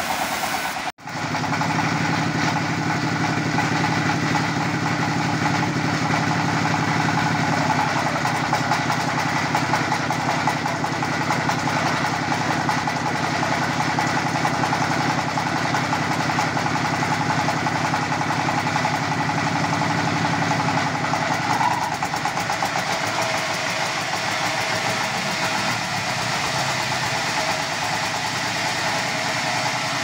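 Small stationary engine running steadily, belt-driving a band sawmill as a log is sawn. The sound drops out sharply for an instant about a second in.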